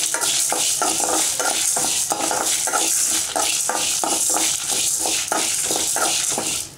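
A metal spoon stirring and scraping roasting chana dal, urad dal, peppercorns and dried red chillies around an aluminium kadai, the grains rattling against the pan in a quick, even rhythm of about three strokes a second.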